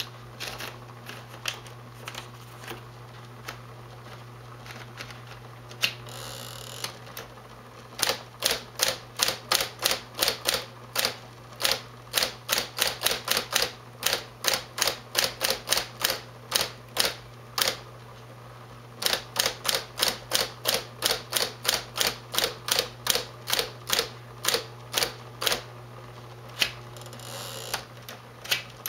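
Smith Corona 5TE electric typewriter being typed on: its motor hums steadily while keys strike in quick runs of several a second, with a short pause partway through. A brief rushing burst comes about six seconds in and again near the end.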